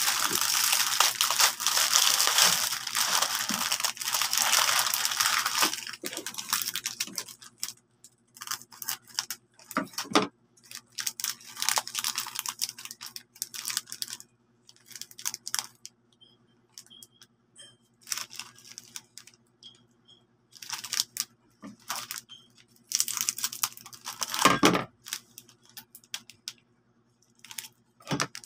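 Plastic snack packets crinkling and rustling as they are handled: a dense stretch of loud crinkling over the first six seconds or so, then scattered shorter crinkles.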